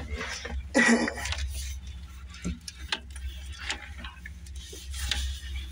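Scattered metal clicks and knocks from handling the fiber blowing machine's clamps and pipe fittings, with one short, loud clatter about a second in. A steady low engine hum runs underneath.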